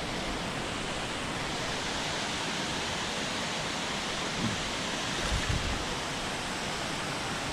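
Steady rushing of creek water, an even hiss with no break.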